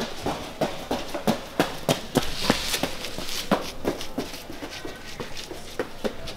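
Quick, even tapping, about three sharp taps a second, with a brief hiss about two and a half seconds in.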